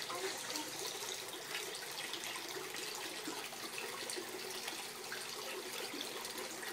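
Tiered patio fountain running: water pouring steadily from its spouts into the basins below, a constant splashing trickle.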